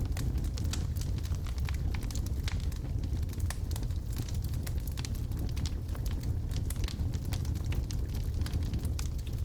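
Wood fire burning in a fireplace: logs crackling with irregular sharp pops over a steady low rumble of the flames.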